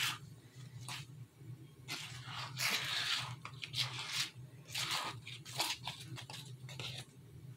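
Thick spackle-and-flour paste being stirred with a utensil in a plastic tub: irregular scraping, squishing strokes, about one every half second to a second. The mix is still too thin and not yet ready.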